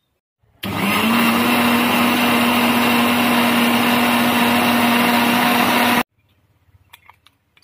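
Electric mixer grinder running, grinding onion, garlic, ginger and green chillies into a masala paste: a loud steady motor whir with a steady hum. It spins up about half a second in and cuts off suddenly near the end.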